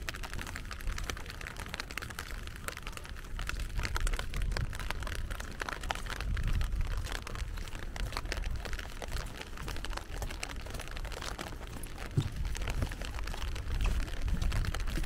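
Steady rain falling, with many close, sharp drop hits over a low rumble.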